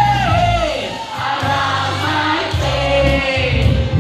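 A solo singer, heard over backing music with a steady bass, ends a long held note that falls away in the first half-second. About a second and a half in, he begins a new winding melodic phrase.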